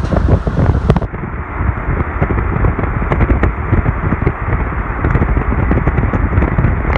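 Heavy wind buffeting on a phone microphone, with road noise from a moving vehicle, a dense gusty rumble that turns duller about a second in.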